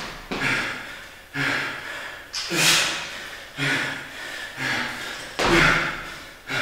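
A man breathing hard under exertion during barbell lifts: a forceful, partly voiced exhalation about once a second, each starting sharply and fading away.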